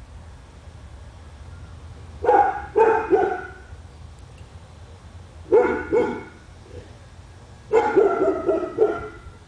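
A dog barking in three bursts a few seconds apart, two to four barks each, over a steady low rumble.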